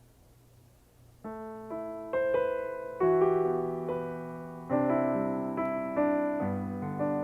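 Piano playing a slow introduction: after a faint hush, chords begin about a second in and are struck roughly once a second, each ringing and fading before the next.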